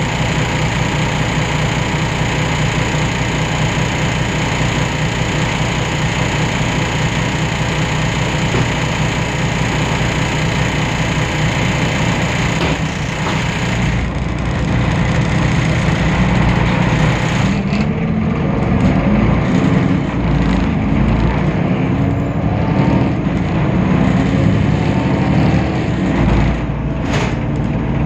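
Diesel engine of a Temsa Avenue LF city bus (DAF PR 228) running steadily at first. About halfway through, the engine note rises and falls repeatedly as the bus gets under way through its ZF automatic gearbox, with a couple of short knocks.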